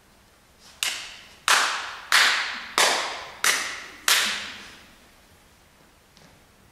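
Six loud, sharp bangs, evenly spaced about two-thirds of a second apart, each ringing out and fading in a large reverberant hall.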